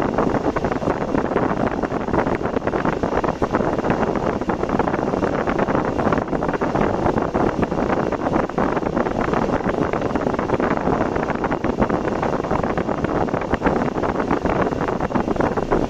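Steady rushing noise from a car on the road, with wind buffeting the microphone.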